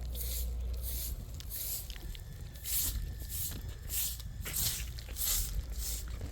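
Rhythmic swishing strokes, about two a second, over a steady low rumble.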